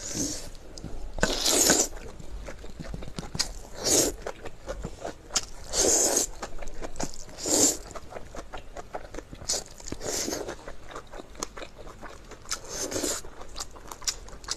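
Close-miked eating: a loud, crunchy bite about every two seconds, with small chewing clicks in between.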